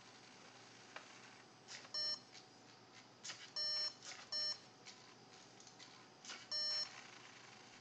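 LEGO Mindstorms NXT brick beeping four short times, two of the beeps close together in the middle. Each beep comes just after a brief mechanical rattle from the plotter's moving parts.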